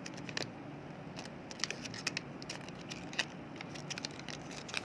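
Scattered small clicks and scrapes of a smartphone battery's plastic casing being picked and pried apart by hand, over a faint steady low hum.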